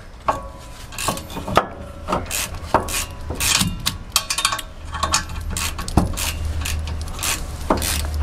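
Metal clinks, clicks and knocks of a wrench and the brake caliper being handled as the tool is fitted to the rear caliper bracket bolt, some with a brief metallic ring. A low steady hum comes in about five seconds in.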